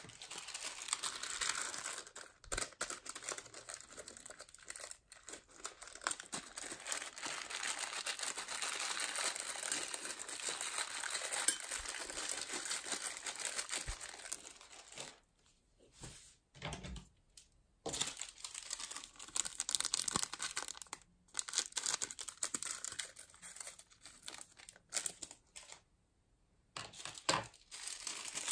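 Plastic bag crinkling and rustling as it is handled, with a few short pauses in the second half, while a bag of coloured beads is opened and emptied.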